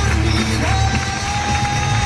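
Loud music with a long held note that comes in a little under a second in.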